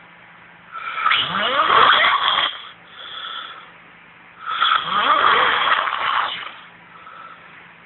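A man snoring heavily in deep sleep: two long, loud snores about three and a half seconds apart, each rising in pitch, with a shorter, quieter breath between them.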